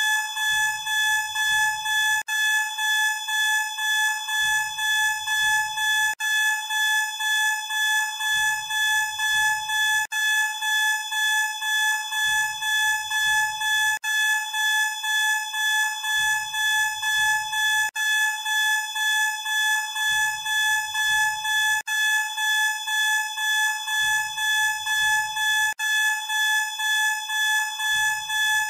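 Electronic fire alarm sounding a continuous high tone that pulses about three times a second, repeating in a steady loop.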